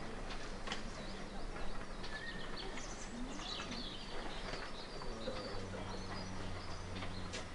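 Small birds chirping and singing in short calls throughout. A low steady hum comes in about two-thirds of the way through.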